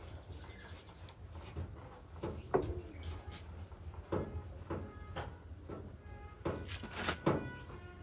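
Irregular metal clinks and knocks, about half a dozen, some ringing briefly, from a long screwdriver worked against a front-loading washing machine's tub and suspension spring.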